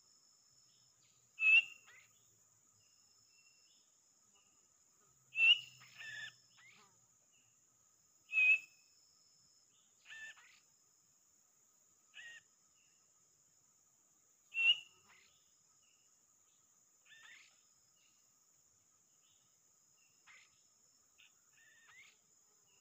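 Short, sharp whistled bird calls, loud ones every two to four seconds with fainter ones in between.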